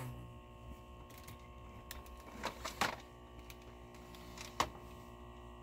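Steady low electrical hum with four light knocks and clicks scattered through it, from things being handled and moved about.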